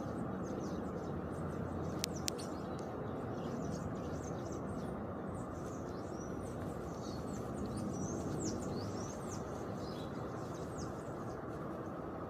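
Small birds chirping outdoors: many short, high chirps that mostly fall in pitch, thickest in the second half, over a steady low background noise. Two sharp clicks about two seconds in.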